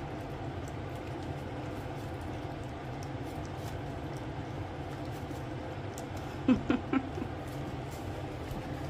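Goldendoodle puppies eating puppy mush from a stainless steel feeding dish: faint lapping and smacking over a steady low hum. Three short vocal sounds come close together about six and a half seconds in.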